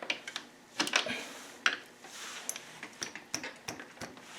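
Irregular metallic clicks and taps of a hand tool working against a dirt bike engine's parts as a coolant line is pried out, with a brief scrape about two seconds in.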